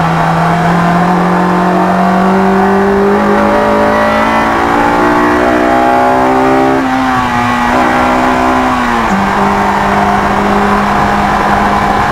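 Honda S2000's four-cylinder engine at full throttle in third gear, its note climbing steadily as the revs rise to about 7,700 rpm. About nine seconds in the pitch drops sharply on the upshift to fourth, and the engine keeps pulling at around 6,000 rpm.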